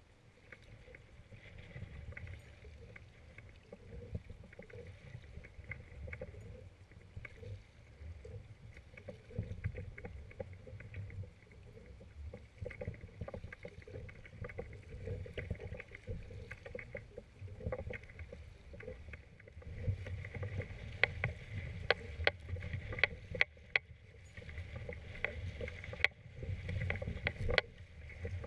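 Double-bladed kayak paddle strokes with water splashing and slapping against the hull of a sit-on-top fishing kayak in choppy water, over a low wind rumble on the microphone. The splashes and slaps get louder and more frequent in the last third as the chop builds.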